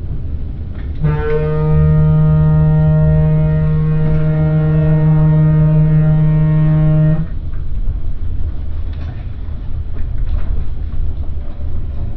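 Truck horn blown in one long steady blast of about six seconds, starting about a second in and cutting off sharply, a warning at a car blocking the truck's way. Under it and after it, the low drone of the truck's engine and road noise heard inside the cab.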